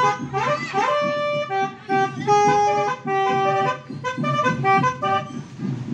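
Music: a loud, reedy melody of held and repeated notes, with a few upward slides about half a second in, over a busy background.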